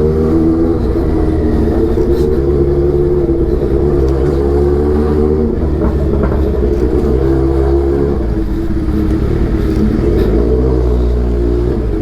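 Kawasaki Z800's inline-four engine running through an Austin Racing aftermarket exhaust. The engine note rises and falls in pitch several times as the bike is ridden.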